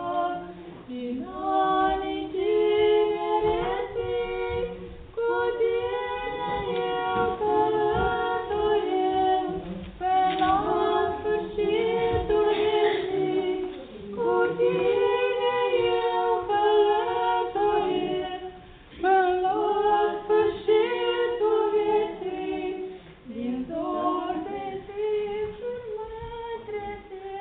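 Unaccompanied female singing of a slow song in phrases of held notes, with short breaks between phrases.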